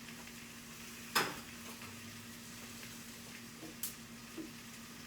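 Hamburgers and vegetables sizzling faintly on a grill, over a steady low hum, with two sharp clicks of a utensil about a second in and near the four-second mark.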